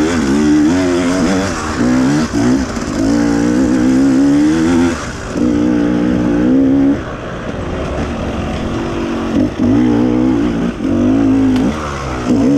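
Dirt bike engine revving up and down as the throttle is worked, the revs dropping off briefly and picking up again several times.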